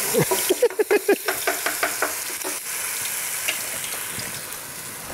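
Hot cooking oil sizzling in a frying pan, heated ready for frying fish, with a quick series of short knocks and squeaks in the first second or so.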